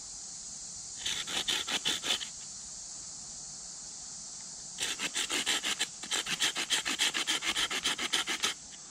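Small hand saw cutting a wooden stick with quick back-and-forth strokes, in two runs: a short one about a second in and a longer one from about five seconds in. It is sawing a notch halfway through the second side of the stick for a trap trigger.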